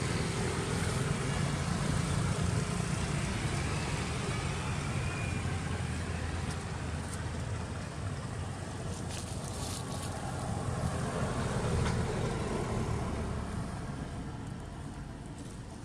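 Low, steady engine rumble of a motor vehicle, easing off over the last couple of seconds.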